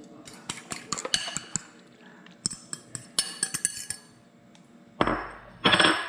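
A kitchen utensil clinking and tapping against a bowl in quick, irregular strokes as egg is added to and mixed into mashed eggplant, followed by two louder, longer noises near the end.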